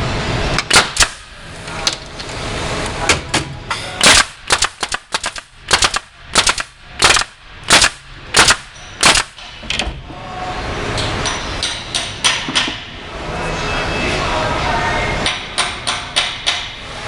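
Hive body assembly machine driving fasteners into the box joints: a rapid string of sharp shots, about a dozen between roughly four and nine and a half seconds in and another cluster near the end, over steady machine noise.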